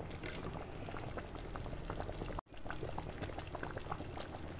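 Thick horse-gram (gahat) phaanu curry boiling in a pot, with many small bubbles popping irregularly over a steady low hum. The sound cuts out for a moment about halfway through.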